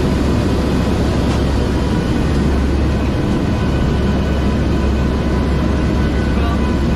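Steady, loud drone of an aircraft's engines and airflow inside the cabin in flight, with a deep low rumble and a few faint steady whining tones above it.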